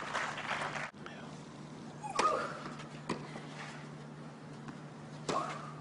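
Crowd applauding for about the first second, cut off abruptly. Then tennis ball strikes on racket strings: a hit with a short player's grunt about two seconds in, a second hit about a second later, and another hit with a grunt near the end, over a faint steady low hum.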